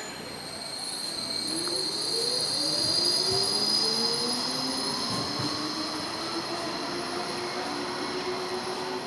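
Electric tram running close by, its motor whine rising in pitch over the first few seconds and then holding steady, with a constant high whine above it.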